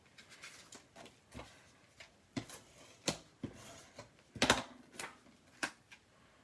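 Cardstock and patterned paper being handled and set down on a craft table: a string of irregular light taps and clicks, the loudest about four and a half seconds in.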